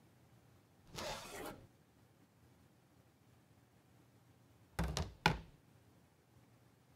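A metal baking tray scraping as it is slid out of a stainless steel oven, about a second in, then two sharp clunks of metal kitchenware a little before and after five seconds.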